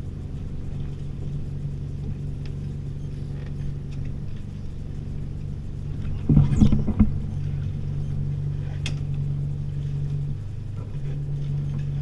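The sailboat's inboard auxiliary engine runs steadily at low revs during docking, with a low hum whose note shifts briefly near the end. A brief loud burst of noise comes a little past halfway.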